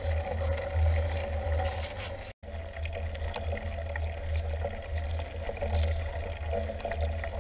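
Mountain bike rolling along tarmac, heard from a camera on the handlebars: steady low wind-and-road rumble with tyre hum and faint rattles. The sound cuts out briefly about two seconds in.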